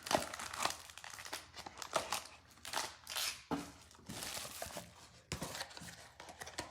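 Plastic wrapping of a sealed trading-card box and its packs crinkling and tearing in irregular bursts as it is opened by hand.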